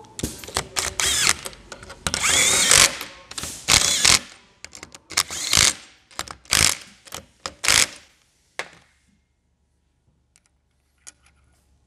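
Cordless power driver driving the bolts of an aluminum V-block clamped in a vise: a dozen or so short runs and one longer run about two seconds in. It stops about eight seconds in, and a few light metallic clicks follow.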